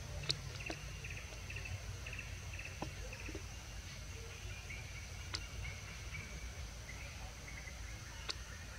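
Forest insects: a steady high-pitched insect drone with short chirping trills repeating again and again, over a low rumble, with a few sharp clicks scattered through.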